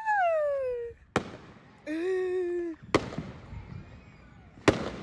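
Consumer fireworks going off: three sharp bangs a second or two apart. Between them, a high cry that falls in pitch right at the start and a held pitched tone about two seconds in.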